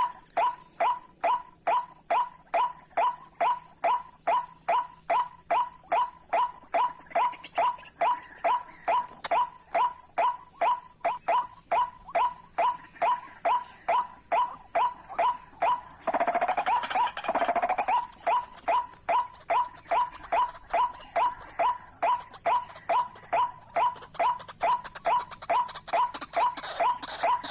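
White-breasted waterhen calls repeated in a steady, even rhythm of about two to three a second. Around the middle there is a louder, harsher outburst of lower calls lasting about two seconds, after which the steady calling goes on.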